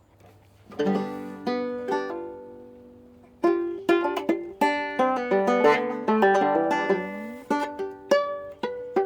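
Banjo being picked: a chord rings out about a second in and fades, then from about three and a half seconds a run of quick picked notes follows, with one note sliding upward near the seven-second mark.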